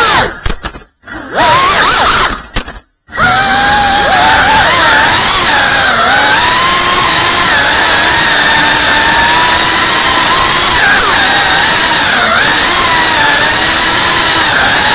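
Tiny whoop FPV drone's small motors whining, the pitch sliding up and down with the throttle. The whine cuts out twice in the first three seconds, then runs on steadily.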